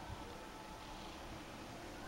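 Faint, distant calls of a migrating common crane flock, heard as a few thin tones over a steady background hiss.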